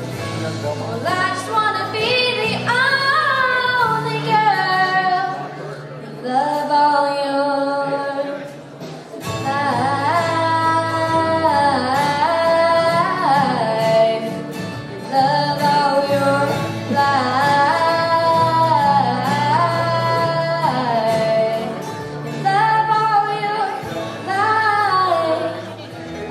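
A woman singing a song in long, sliding held notes over a steady instrumental accompaniment.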